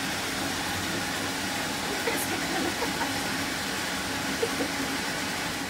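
Steady rushing of tap water running into a bathtub as it fills for a bath.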